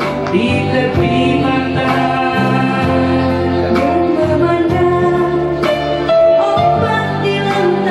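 A woman singing into a handheld microphone over backing music, her voice amplified through a PA speaker.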